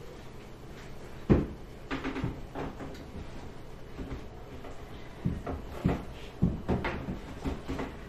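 Wooden cabinet door panel knocking against the front of a built-in dishwasher as it is fitted into place: one sharp knock about a second in, then a string of lighter knocks in the second half.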